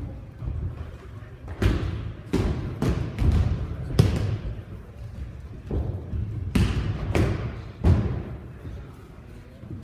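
Bodies landing on training mats as students take falls during aikido throws: irregular thuds and slaps, about eight in all, each echoing in a large hall.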